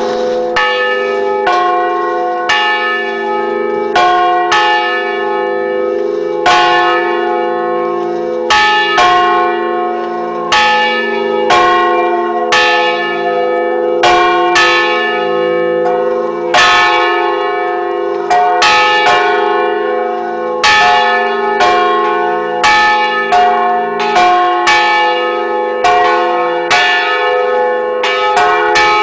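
Restored church bells rung over and over, about one or two strokes a second in an uneven pattern. Each stroke rings on, so the bells' deep hum carries through between strikes.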